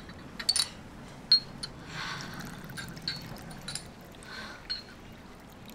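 Soju poured from a green glass bottle into a glass, with several sharp little glass clinks and ticks, the loudest about a second in.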